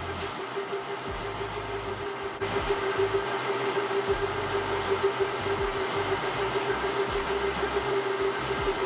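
Vitamix blender running, blending almond flour with water into almond milk: a steady whir with one held tone that gets louder about two seconds in.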